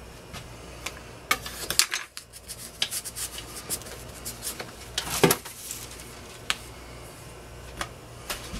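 Metal spatula scraping and clicking against a floured countertop as its blade is slid under cut-out cookie dough to lift the cookies: short, irregular scrapes and taps, the loudest a little past halfway.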